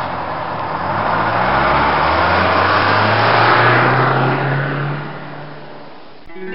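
Vehicle engine sound effect, most likely a bus, accelerating: a low engine note climbs slowly in pitch as the noise swells, then fades away. Music with plucked and mallet notes starts right at the end.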